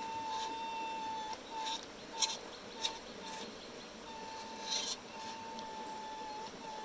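Small brushed electric motor of an RC crawler, a 130-size Nerf-gun motor, whining at one steady pitch in stops and starts as the throttle is applied and released. A few short sharp clicks or scrapes are mixed in.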